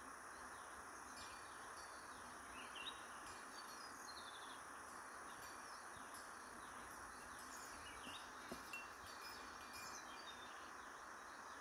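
Faint, scattered chirps of small wild birds over a steady background hiss.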